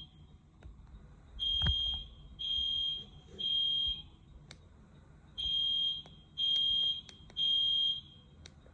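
Fire alarm horn sounding the temporal-three evacuation pattern: three high-pitched beeps about a second apart, a pause of about a second and a half, then three more. The tone really hurts the ears. A single thump comes about two seconds in.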